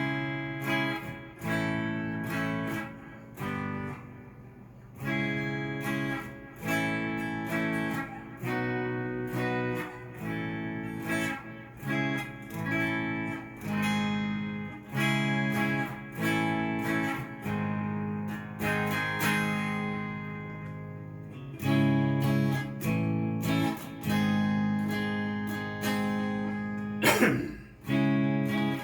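Cort S series electric guitar played clean through a Fender amp: chords strummed in a steady rhythm, with a loud brief sweeping accent near the end.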